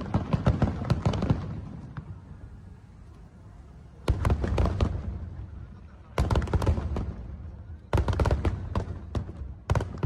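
Aerial firework shells bursting: a burst already sounding at the start, then four more sudden booms about two seconds apart, each trailing off in a crackle.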